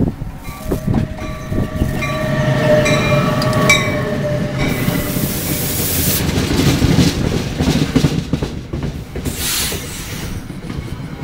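An NJ Transit ALP-46 electric locomotive and its passenger coaches roll past close by: a loud, continuous rumble of wheels on the rails. A set of steady tones sounds for the first few seconds as the locomotive goes by.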